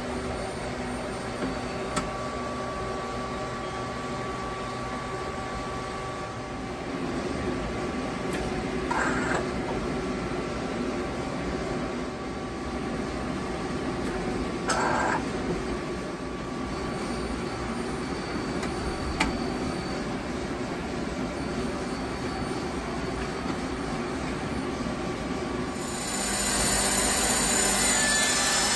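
1995 Citizen M20 CNC Swiss-type lathe running through its machining cycle: a steady machine hum with several held whining tones, a few sharp clicks, and two short bursts of hiss about nine and fifteen seconds in. The sound gets louder and brighter near the end.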